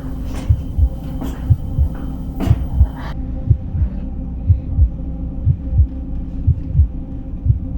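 A regular heartbeat-like double thump, one pair about every second, over a steady low hum, with a few sharp clicks in the first three seconds.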